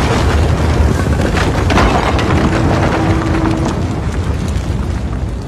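A burning church building: a large fire with a deep, steady rumble and constant crackling and snapping, and a faint held tone about halfway through.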